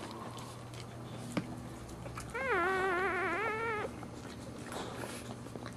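Newborn Boxer puppy crying: one thin, wavering, meow-like cry lasting about a second and a half, starting a little over two seconds in.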